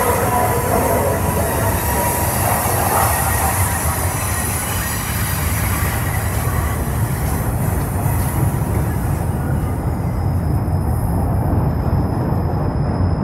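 Freight train cars rolling past close by: a steady rumble of steel wheels on rail. A wheel squeal fades out in the first couple of seconds.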